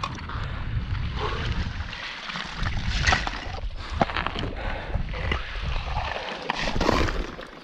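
Slush and broken ice in a freshly chopped ice hole being stirred and scooped with a long-handled mesh scoop: water sloshing and gurgling, with many short knocks and clinks of ice chunks.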